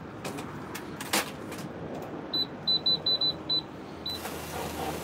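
Electronic cash register keypad beeping: about eight short, high beeps at an irregular, key-pressing pace, over the low hum of the shop. A click sounds about a second in.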